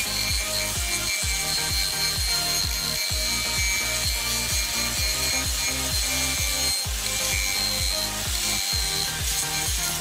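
Angle grinder with a wood-shaping disc running and abrading a block of wood, a steady high motor whine over a rough rasping of the wood.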